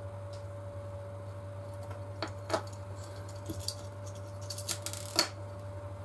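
A few small sharp clicks and taps of a precision screwdriver and tiny metal parts as screws are undone on a DJI Mavic's camera gimbal, the sharpest about five seconds in, over a steady low hum.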